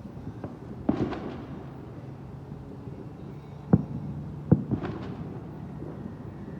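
Fireworks going off: a string of sharp bangs and cracks over a steady low rumble. The loudest bang comes about a second in, with two more close to the four-second mark and a few smaller pops after each.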